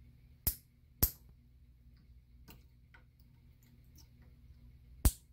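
Hammer striking a nail punch against the locking piece inside a Chrysler Crossfire/Mercedes ignition key assembly held in a vise, to knock the piece loose. There are three sharp metallic strikes: two about half a second apart near the start and one near the end, with faint clicks between.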